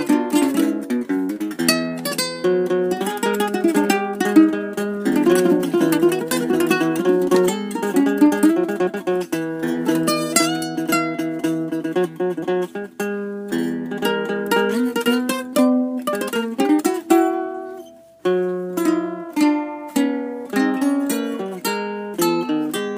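Acoustic guitar and ukulele playing together in quick plucked and strummed notes, with a brief break about eighteen seconds in before the playing picks up again.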